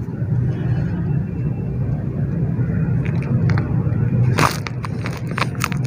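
Clumps of pure dirt crumbling and cracking apart in a few sharp crunches, the loudest about two thirds of the way in, over a steady low rumble.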